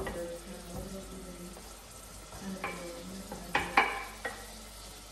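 Chopped vegetables scraped off a wooden cutting board with a wooden spoon into a hot stainless steel pot, where they sizzle. There is a knock at the start and a few sharp knocks of the wooden spoon against the board a little under four seconds in, the loudest of them in quick succession.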